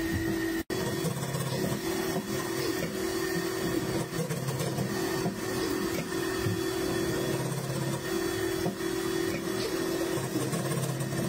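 Fabric fringing machine running steadily, its reciprocating comb cutter chopping the cloth edge into tassels. A steady mechanical hum, with a lower drone that cuts in and out every few seconds.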